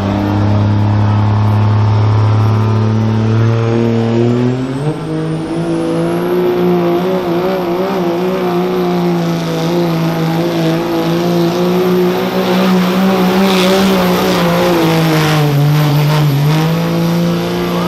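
Turbo-diesel pickup engine at full throttle, pulling a weight-transfer sled. The engine note climbs over the first few seconds, then holds at high revs while a high turbo whistle rises above it. The revs dip briefly near the end and pick back up.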